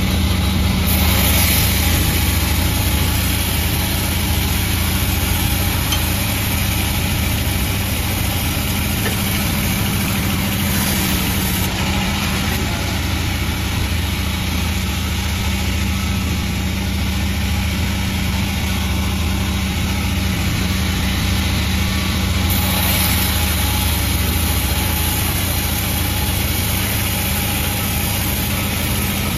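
Panda36 sawmill running steadily, a constant engine-like hum under an even hiss. The hiss brightens briefly about a second in, around ten seconds in and again near twenty-three seconds.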